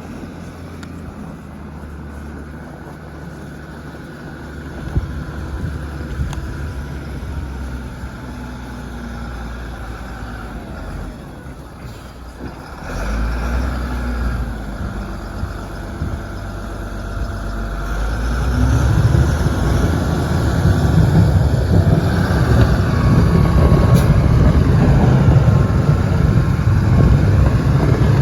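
Snow-clearing tractor's engine running, its pitch rising and falling as it works. It gets much louder in the last third as it comes close.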